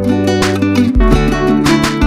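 Background music led by a strummed acoustic guitar, with a bass line changing about once a second.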